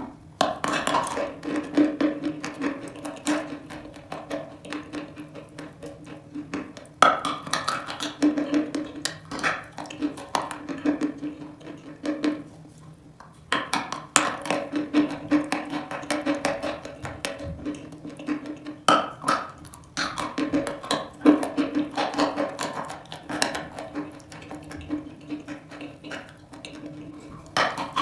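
Close-miked crunching and chewing of a dry block of eating chalk: a sharp snapping bite about every five to six seconds, each followed by a run of gritty crackling chews.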